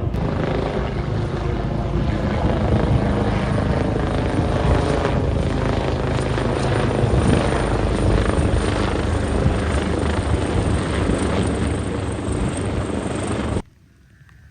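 AgustaWestland AW139 helicopter flying low: loud, steady rotor and turbine noise that grows a little louder partway through, then cuts off abruptly near the end.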